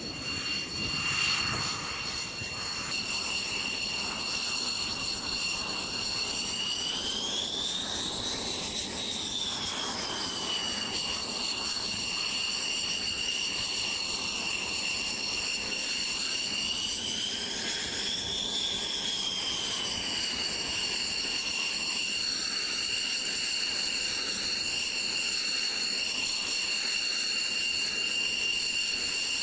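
The turbofan jet engine of a Northrop Grumman X-47B running at low power on a carrier deck: a steady high-pitched whine over a rush of exhaust noise. The whine rises in pitch and settles back twice, about eight and eighteen seconds in.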